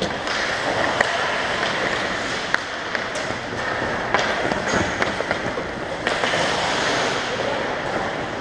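Ice hockey play: skates scraping the ice, with scattered sharp clacks of sticks on the puck and ice.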